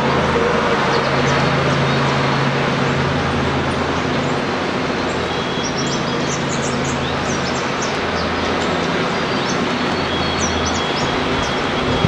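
A steady low mechanical hum under a continuous rushing noise, with small birds giving short, high chirps now and then, most around six seconds in and again near eleven seconds.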